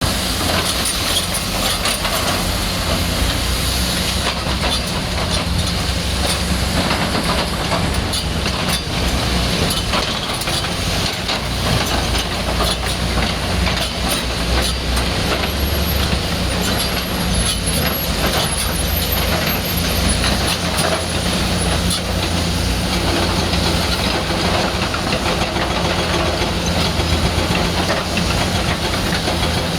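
Hydraulic excavator's diesel engine running steadily under load while its ripper tooth tears into the ground, with frequent knocks and scrapes of steel against hard ground.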